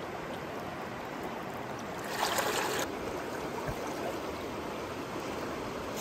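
Fast river current rushing and swirling against rocks at the bank, a steady wash of water noise. A brief louder rush comes about two seconds in and lasts under a second.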